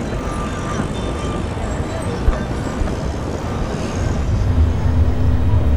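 City street ambience: a steady wash of traffic noise with a single short click midway. About four seconds in, a low steady drone swells in underneath.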